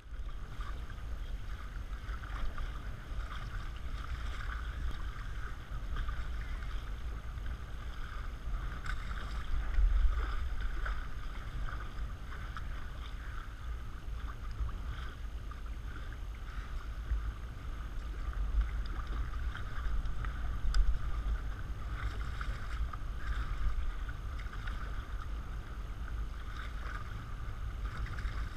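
Water swishing and splashing along the hull of the Marsh Duck, a small sailboat under way, with wind rumbling on the microphone in gusts, strongest about ten seconds in and again around twenty.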